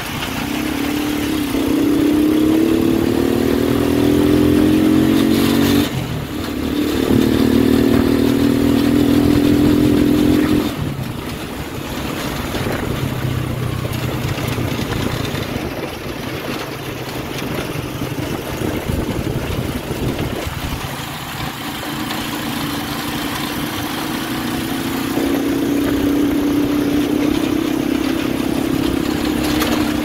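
Motorcycle tricycle engine running under way. Its pitch rises as it accelerates, drops at a gear change about six seconds in and climbs again, then falls back about ten seconds in. Near the end it settles into a steady cruise.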